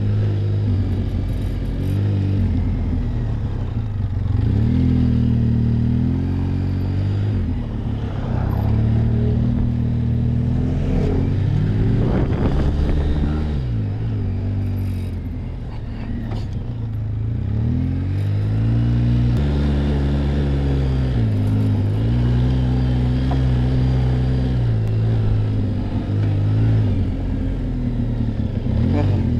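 ATV (quad bike) engine running while ridden, its pitch rising and falling as the throttle opens and eases; it eases off briefly about halfway through.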